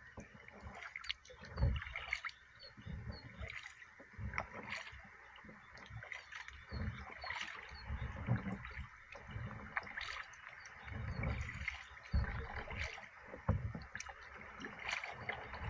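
Kayak paddle strokes splashing in river water, with water gurgling along the hull and low knocks recurring about every second.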